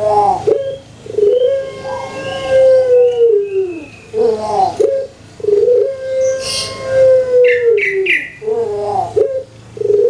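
Puter pelung dove (Streptopelia risoria) singing its cooing song: each phrase is a quick stuttering burst of short notes followed by a long held coo that falls away at the end, repeated about every four seconds, three times.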